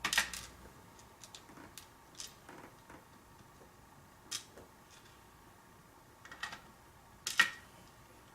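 Small sharp clicks and taps of a pin tumbler lock being taken apart by hand, metal lock parts and tools knocking together, the loudest just after the start and again about seven seconds in.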